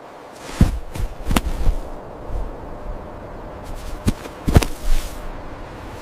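Sharp cracks in two groups of about three, the first starting about half a second in and the second about four seconds in, over a low rumble.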